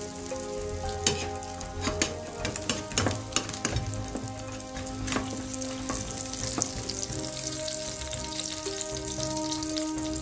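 Fried egg sizzling in hot fat in a frying pan, with metal utensils clicking and scraping against the pan as the egg is cut and lifted out; the clicks come thickest over the first two-thirds.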